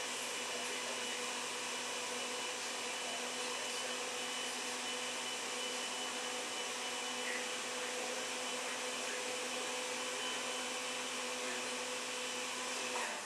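A steady motor whir with a constant hum, like a fan or blower running without change.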